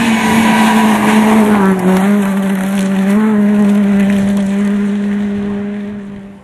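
Ford Fiesta rally car at speed on a gravel stage: the engine is held at high revs, dips in pitch about two seconds in and picks up again a second later, over the crunch of gravel under the tyres. It fades as the car moves away near the end.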